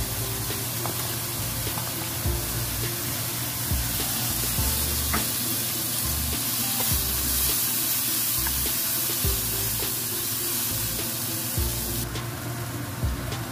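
Stir-fried onion, carrot and meat sizzling in a hot wok, with a few light clicks, under background music; the sizzle drops off near the end.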